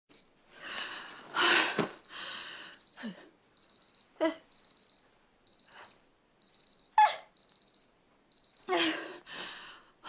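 An electronic alarm beeps high and quick, in repeated groups of four or five beeps. Over it a woman takes breathy, gasping breaths as she builds up to a sneeze, with a short sharp vocal catch about seven seconds in, the loudest sound.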